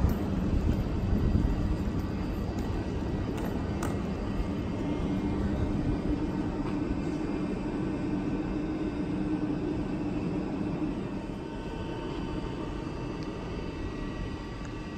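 Electric locomotive standing at the platform, its blowers and auxiliary machinery running with a steady rumbling hum. Faint high whining tones grow stronger over the last few seconds.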